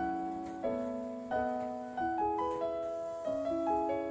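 Background piano music: slow, evenly paced notes and chords, each struck and fading.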